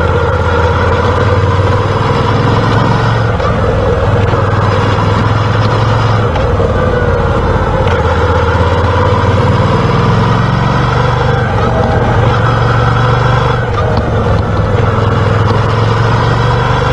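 Moto Guzzi V7 Special's air-cooled 750 cc V-twin running on the road, its note falling and rising a few times.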